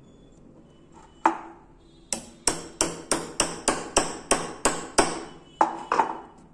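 Hammer blows on a steel punch set in a steel die block, driving a silver ring down into the die: one blow, then about ten quick blows at roughly three a second, then two more. Each is a sharp metallic strike with a short ring.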